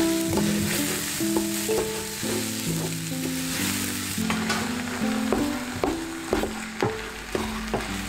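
Ground meat sizzling as it browns in a large stainless steel pot, stirred and scraped with a wooden spoon. Over the second half the spoon knocks against the pot again and again, over background music.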